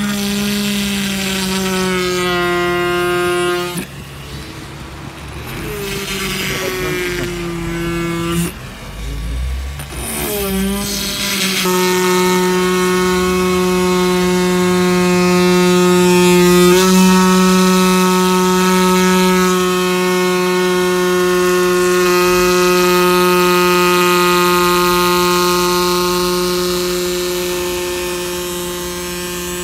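Small handheld electric rotary tool running with a steady high whine as its bit drills into a chip in a car windshield. The whine drops and breaks up for several seconds in the first third, then resumes steadily.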